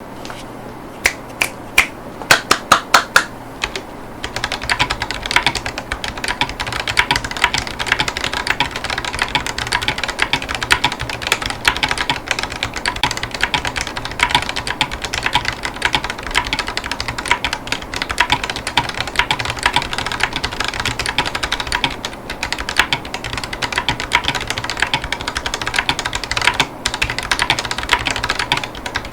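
Typing on a Ducky One 3 Aura mechanical keyboard with Drop Holy Panda tactile switches and silicone Cherry-profile keycaps. It opens with about ten loud, separate clicks, then from about four seconds in runs into steady fast typing, with short lulls near the end.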